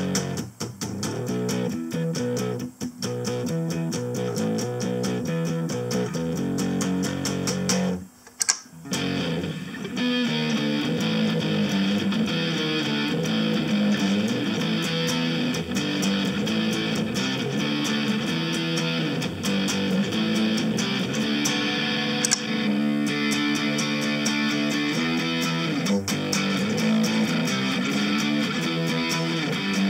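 Electric guitar played through a Harley Benton DNAfx GiT multi-effects processor preset, picking a riff of notes. It breaks off briefly a little over eight seconds in, then resumes.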